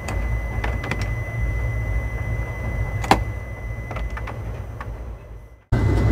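Steady low rumble of a moving train heard inside a 2-tier AC sleeper coach, with a few light clicks and knocks and a faint steady high tone. The sound cuts out for a moment near the end and comes back louder.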